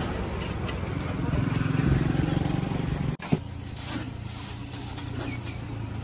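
Motor scooter engines and passing road traffic, a steady low rumble, with faint chatter of voices. The sound drops out briefly about three seconds in.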